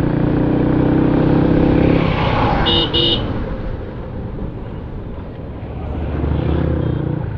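Motorcycle engine running steadily in road traffic, with two quick horn beeps about three seconds in. The engine sound drops back, then swells again near the end.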